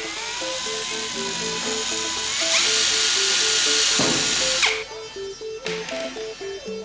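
Handheld electric power tool motor running with a steady whine that steps up in pitch about halfway through, then stopping abruptly, over light plucked-string background music.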